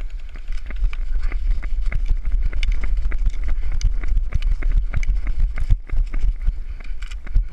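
Running footsteps with gear knocking and rattling, over a heavy low rumble of wind and movement on the body-worn action camera.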